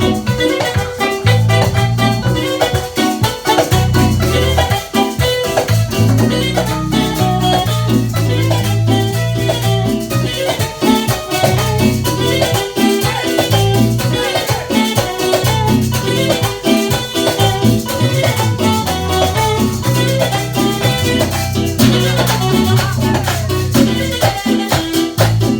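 A band playing salsa-style Latin music at a sound check, with a steady bass line under percussion and melody instruments, without a break.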